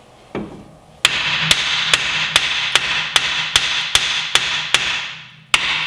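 Hammer blows on the rusted steel steering knuckle of a Mk4 Volkswagen Golf: one hit, then a steady run of about ten ringing metal-on-metal strikes a little over two a second, a brief pause, and a new run starting near the end. The knuckle is being driven down off the bottom of the strut where it is rusted on.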